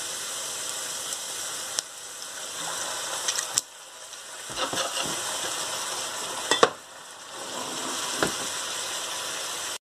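Diced onions sizzling in butter and sugar in a frying pan, just doused with apple cider vinegar, with a few sharp clicks of stirring against the pan. The sizzle dips briefly twice.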